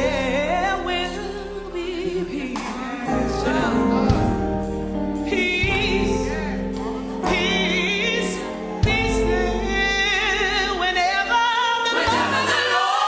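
Gospel song: voices singing with a wavering vibrato over bass and band accompaniment.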